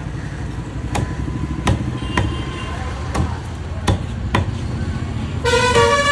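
A large curved knife chopping through fish onto a wooden log block: about six sharp chops at uneven intervals over a low traffic rumble. Near the end a vehicle horn honks for about half a second.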